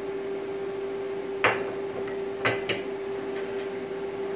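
Metal clacks of a spring-type welding ground clamp being snapped onto a piece of square steel tubing and set on the bench: one sharp clack, then two lighter ones about a second later. A steady hum runs underneath.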